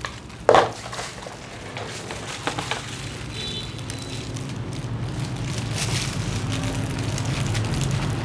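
A sharp knock about half a second in, then soft crackling and rubbing as a comb spreads thick perm lotion through hair, over a steady low hum that grows gradually louder.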